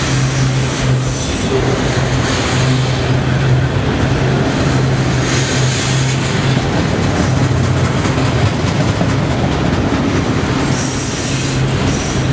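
CSX freight cars rolling past on steel rails, a loud, steady rumble of wheels and cars with a low hum running under it. A high squeal from the wheels comes and goes, strongest near the end.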